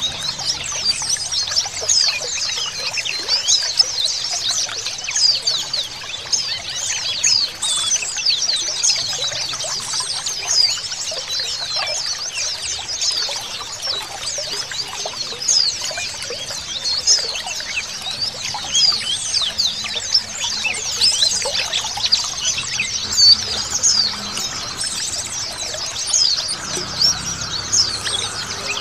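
A crowd of white-eyes (pleci) kept together chirping and twittering densely and without pause, with many short high-pitched notes overlapping, over the sound of trickling water.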